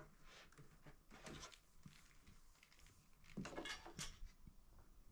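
Near silence with a few faint rustles and soft knocks from handling things on a table, a little louder about three and a half seconds in.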